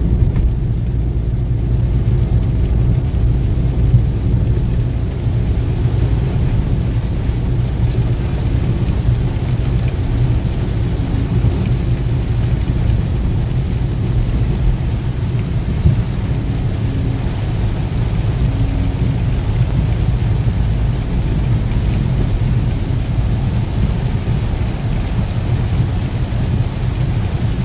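Cabin sound of a moving 2011 Maruti Suzuki WagonR with its 998cc three-cylinder petrol engine: a steady low engine drone under the hiss of tyres on a wet road and rain on the car. The rain hiss grows stronger after the first few seconds as the rain gets heavier.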